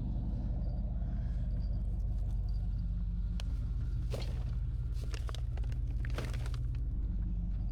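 Vehicle engine idling steadily with a low rumble. A few light rustles and clicks come over it in the middle.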